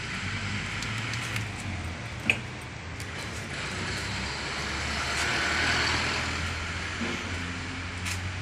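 Background vehicle and road-traffic noise: a steady low hum with a hiss that swells about five to six seconds in. One sharp click about two seconds in.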